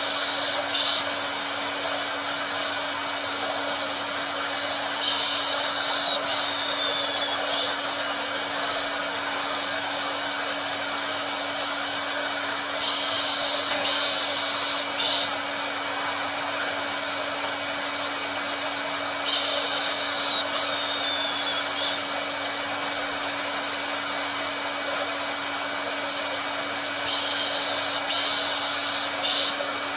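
Electric hair dryer running continuously: a steady blowing hiss with a low hum under it. About every seven seconds a brighter, higher hiss swells over it for a couple of seconds and then drops back.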